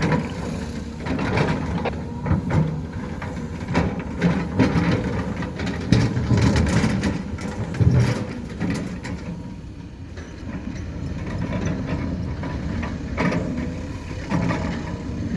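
Heavy diesel earthmoving machinery working: a steady engine with repeated metal clanks and knocks, getting louder from about six to eight seconds in and dipping briefly around ten seconds.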